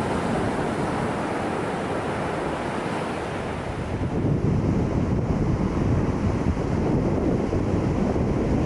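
Ocean surf washing in on a beach, then, from about four seconds in, a louder, lower sound of waves breaking and splashing against the rocks of a jetty, with wind buffeting the microphone.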